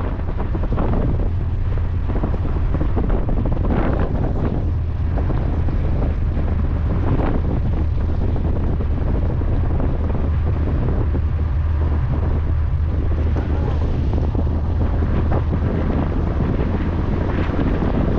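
Wind buffeting the microphone outdoors: a steady low rumble with gusty rushes on top.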